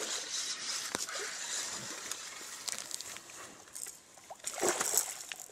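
Water splashing and sloshing as a hooked fish thrashes in the shallows at the bank while it is landed, with a sharp click about a second in and a louder splashing flurry near the end.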